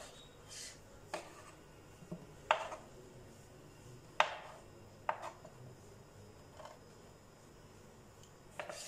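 Kitchen knife cutting apricots on a wooden cutting board: scattered sharp taps of the blade on the board, several seconds apart.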